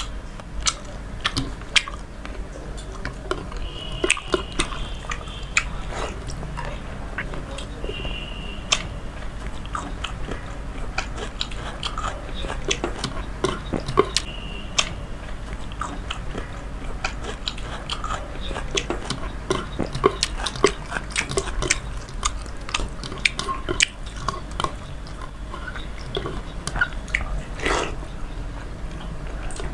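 Close-up mouth sounds of a person eating water-soaked rice (panta bhat) with hilsa fish by hand: wet chewing and smacking with many irregular clicks, and fingers mixing the watery rice in the bowl between mouthfuls.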